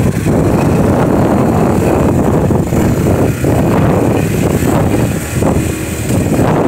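Heavy wind rumble on the microphone of a moving motorcycle, over the running single-cylinder engine of a Yamaha YTX 125.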